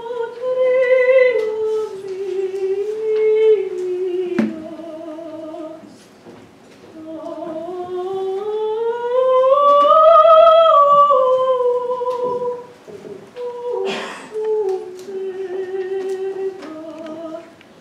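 A single female voice singing a slow melody on stage, in long held notes with vibrato that climb to a high peak near the middle and then fall back. A sharp click comes about four seconds in.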